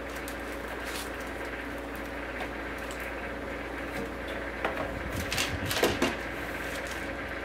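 DVD case and its wrapping film being handled on a DeltaWrap 200 overwrapping machine: light plastic clicks and rustling over a steady hum, with a short cluster of louder clacks and crinkling about five seconds in.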